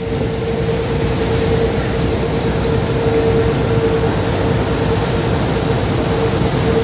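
River passenger boat under way: the engine running steadily under a loud rushing noise, with one constant droning tone.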